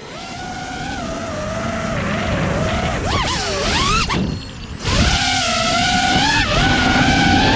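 A 5-inch FPV racing quadcopter's brushless motors (T-Motor F80 Pro 2200 kV spinning HQ 5x4.3x3 V2S props) whining in flight, their pitch rising and falling with the throttle, with a low rushing underneath. About three seconds in the pitch swoops up and down, then just after four seconds the throttle briefly drops off and the motors spool back up louder about a second later.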